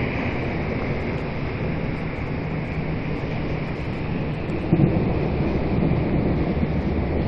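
Steady rain with a low rumble of thunder, which swells louder about two-thirds of the way through.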